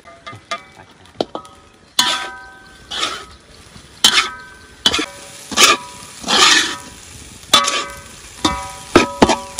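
Metal spatula scraping and striking a steel wok while stir-frying rice, the wok ringing with a metallic tone after many of the strokes. Light taps at first, then about a dozen loud scrapes and knocks in an uneven rhythm from about two seconds in.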